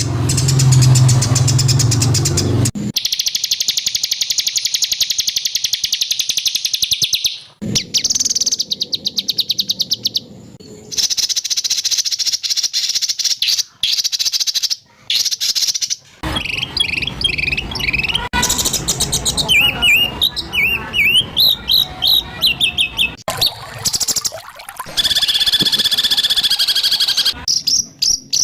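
A spliced sequence of harsh songbird phrases used as masteran training song for white-rumped shamas. The phrases are long, rapid, high buzzing trills, bursts of quick sweeping whistled notes, and fast clicking rattles, each cutting off abruptly into the next.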